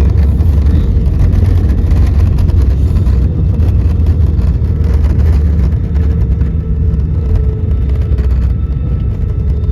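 Loud, steady low rumble of an airliner just after touchdown, heard from inside the cabin as it rolls down the runway: engine and wheel noise with a faint steady whine above, easing slightly in the last few seconds.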